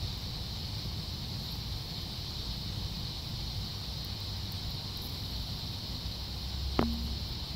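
Outdoor ambience: wind rumbling on the microphone under a steady high-pitched hiss, with one brief sharp click near the end.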